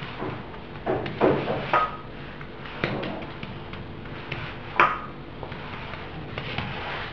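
Hands pressing and patting a sheet of buttered dough flat on a granite countertop: a few dull knocks, two of them with a brief ringing clink, about two seconds in and again near five seconds.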